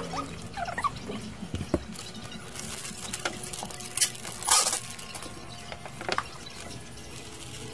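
Handling noises at a workbench: scattered small clicks and knocks, with two brief crinkles of a clear plastic bag about four seconds in.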